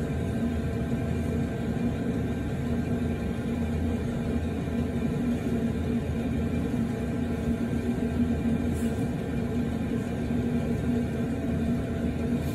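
Steady low machine hum at a constant pitch over a low rumble, unchanging throughout.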